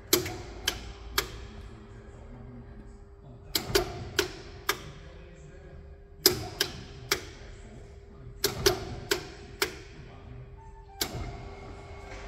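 Operation of a Martin T90 tilting-spindle moulder's control panel: sharp clicks in groups of three or four, a couple of seconds apart, over a steady machine hum.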